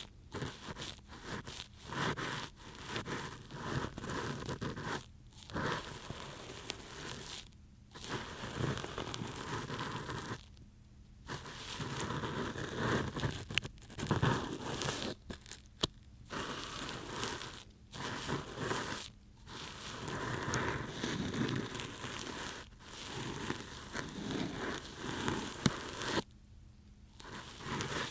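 Ear pick scraping and rustling close inside a binaural microphone's ear, in strokes with brief pauses between them and a few sharp clicks.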